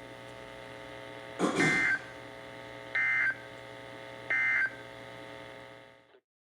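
NOAA Weather Radio SAME end-of-message data bursts: three short, shrill digital warbles about a second and a half apart, over a steady radio hum, marking the end of the warning broadcast. The audio cuts off about a second after the last burst.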